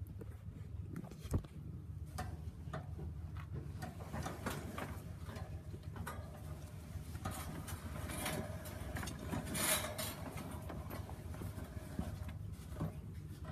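Close handling noise: cloth rustling and irregular light clicks and taps, over a steady low hum. A sharp knock comes about a second in, and a louder rustle near ten seconds.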